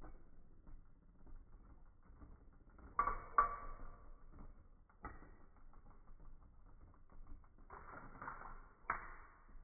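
Beyblade toy parts and plastic packaging being handled: scattered light clicks and rustling, with sharper plastic clacks about three seconds in, again at five seconds and near the end.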